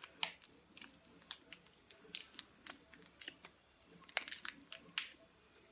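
Faint, irregular light clicks and crinkles of a massage-cream packet being handled in the hands, the sharpest about four seconds in.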